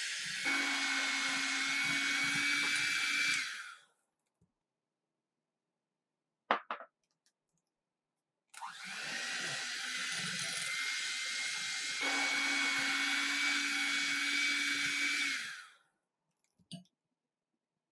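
Electric mixer running with a steady whine, stepping up to a higher speed just after it starts, then stopping. A short knock follows, then the mixer runs again, steps up a speed partway through and cuts off.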